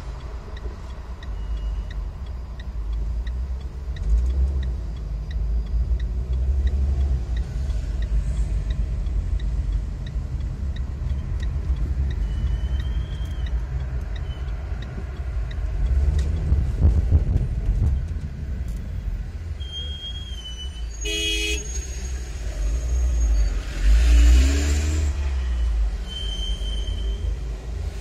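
Low road and engine rumble heard from inside a moving car in city traffic, with a turn-signal indicator ticking evenly for the first several seconds and a brief car-horn toot about 21 seconds in.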